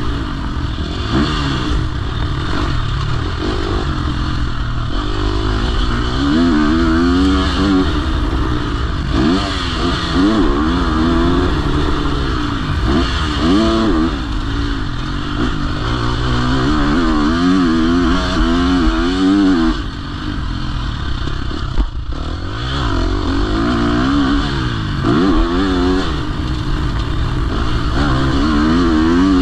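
KTM SX-F single-cylinder four-stroke motocross bike engine revving up and falling back over and over as the throttle is opened and closed on the track, heard close from the onboard camera with a low wind rumble. The engine drops off briefly about two-thirds of the way through, then picks up again.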